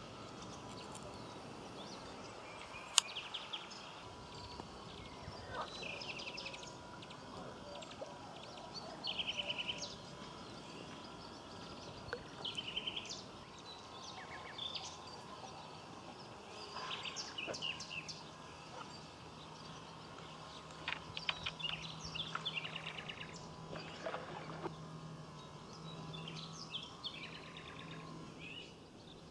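Several birds singing and calling over a steady outdoor hiss, with quick chirping trills scattered throughout. A single sharp click about three seconds in.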